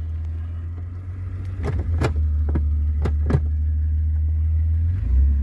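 Jeep Cherokee XJ engine idling with a steady low hum, heard from inside the cab. A handful of sharp clicks and knocks come between about one and a half and three and a half seconds in, as a hand works the controls by the shifter. The engine note changes near the end.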